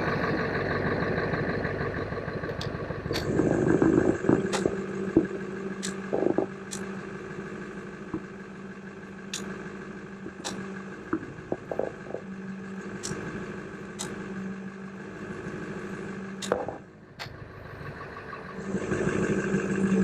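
A vehicle engine idling steadily, with faint irregular ticks over it. It drops away briefly about three-quarters of the way through, then comes back up.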